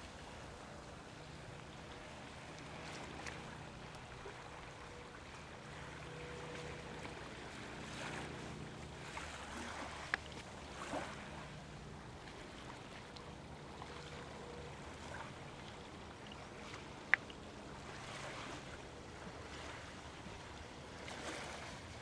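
Faint, steady shoreline ambience of wind and small waves, with a faint low hum and a single sharp click a little over three-quarters of the way through.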